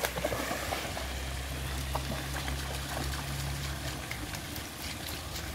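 Shallow river running over stones, a steady trickling rush, with a dog's legs now and then splashing softly through the water.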